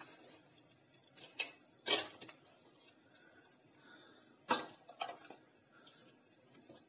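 Steel dishes and plates clinking and knocking as they are moved and set down around a gas stove. A scatter of separate clinks, the loudest about two seconds in and another strong one about four and a half seconds in.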